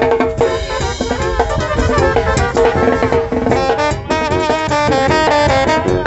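Live Sinaloan banda playing a cumbia: brass and clarinets over a sousaphone bass line, with snare drum and tambora bass drum. Held brass notes give way about halfway through to short, repeated brass figures.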